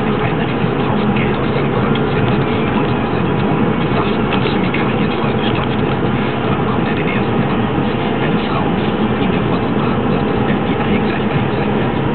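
Steady road noise inside a moving car: engine and tyres on a wet road in the rain, an even rushing with no break.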